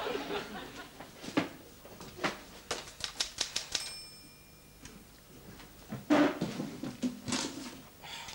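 Manual typewriter being typed on: irregular key strikes that quicken into a run of clacks, then the typewriter's bell rings once about four seconds in. Heavier clacks follow around six seconds.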